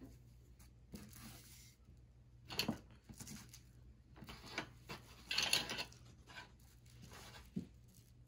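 Woven tapestry book cloth being unfolded and spread out on a table by hand: a series of short rustles, the loudest a little past the middle.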